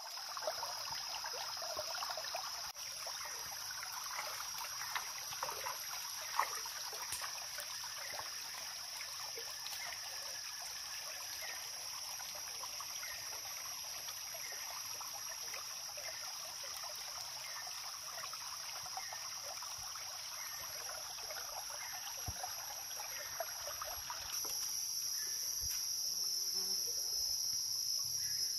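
Steady high-pitched insect chorus over a small stream trickling among rocks. About three-quarters of the way through, the trickle fades and the insect drone grows louder.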